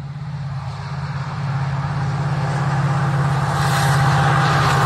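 WDP4D diesel locomotive's two-stroke V16 engine drone, growing steadily louder as the train approaches. A rushing noise builds in over the last second or so.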